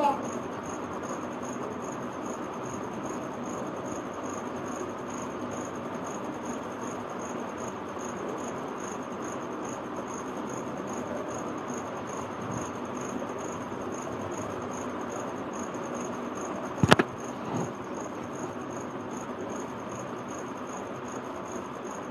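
Steady room noise with a thin, high-pitched whine over it, and one sharp click about three-quarters of the way through, followed by a fainter one.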